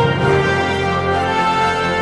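Background music: a melody of held notes over a steady low accompaniment.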